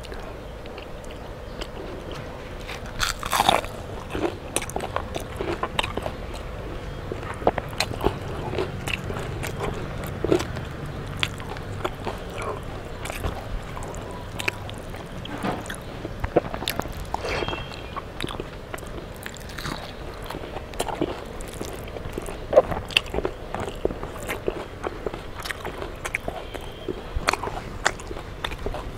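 Close-miked chewing and crunching of crisp fried food (fried fish and pakoda), with irregular sharp crunches throughout and the soft squish of fingers mixing watery rice.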